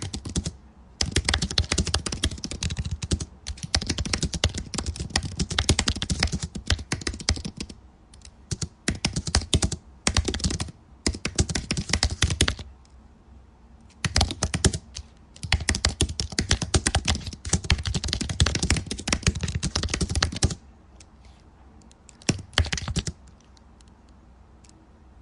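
Typing on a keyboard: rapid key clicks in runs of a few seconds with short pauses between, thinning to a few scattered clicks near the end.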